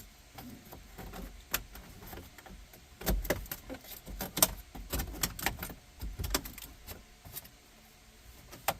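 Plastic dashboard trim piece around the radio being pried loose with a pry tool: a run of irregular sharp clicks, snaps and rattles.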